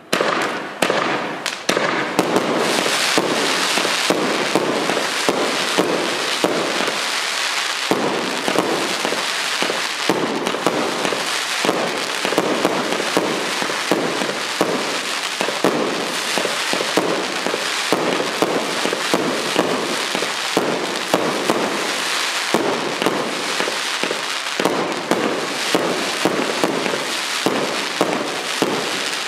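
P7887 "Pacific Ocean" consumer firework going off in a dense, continuous barrage of rapid shots and crackling that starts suddenly and keeps up without a break.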